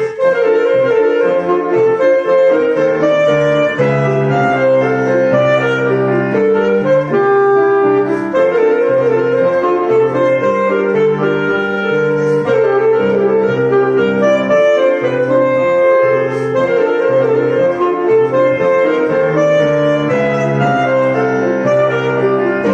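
A solo wind instrument, most like a saxophone, playing a melody with piano accompaniment.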